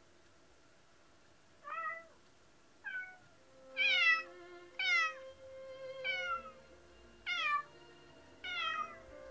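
A domestic cat meowing seven times, about once a second, each meow falling in pitch. The first two are fainter and the rest louder.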